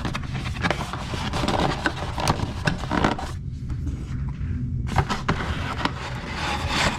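Packaging being handled as a small accessory box is opened and searched: continuous rustling and scraping with small knocks, easing off briefly about halfway through.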